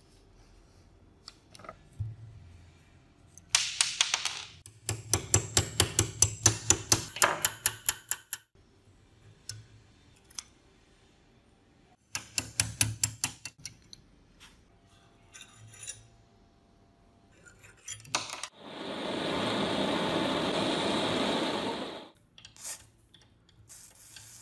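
A wrench working seized, rusted bolts on an old iron tool: bouts of rapid metallic clicks and scraping, a few single ticks, then a steady hiss lasting about three seconds near the end.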